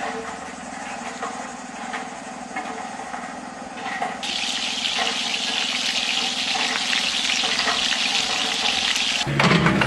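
Water running from a tap, starting about four seconds in as a steady loud hiss, after a few light clicks and knocks.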